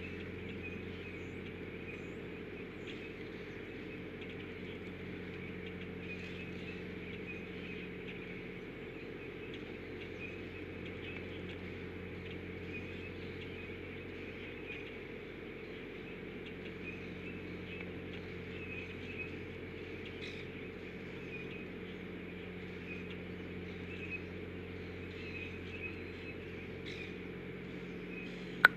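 Faint high chirping, many small repeated calls, over a steady low hum, with one sharp click near the end.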